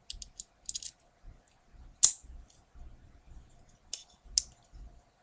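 Small sharp metal clicks of a Leatherman Wave multitool being handled, its tools moved and snapping into place: a quick run of light clicks at the start, a louder single click about two seconds in, and two more clicks near the end.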